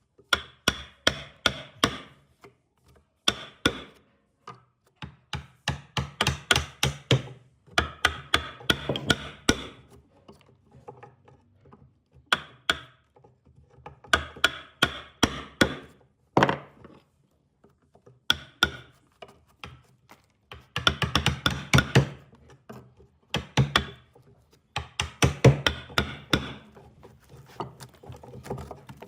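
Repeated sharp knocks on wood in bursts of several quick strikes a second, with short pauses between the bursts, as of hand tools striking wood.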